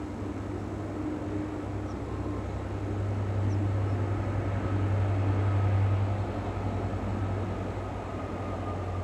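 A steady low rumbling drone that swells slightly about halfway through, with a faint high tone sliding slowly downward near the end.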